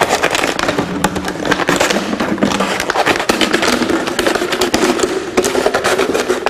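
Thin plastic water bottle crackling and crinkling in rapid, irregular clicks as a knife saws through its wall.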